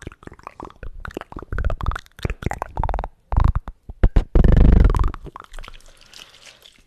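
Close-miked ASMR mouth sounds: a string of short, wet clicks and broken, croaky gurgling noises made with the mouth and throat, with a loud low-pitched blast lasting about half a second a little past four seconds in.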